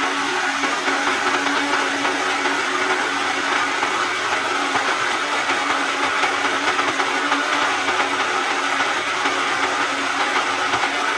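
Small electric blender running steadily, its motor humming at one even pitch as it blends peri peri sauce ingredients into a fine paste.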